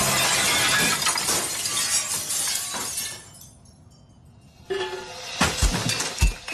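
The glass pane of a patio door shatters as a chair is smashed through it, and glass crashes and tinkles down for about three seconds. After a short lull, music with heavy, evenly spaced bass-drum beats starts near the end.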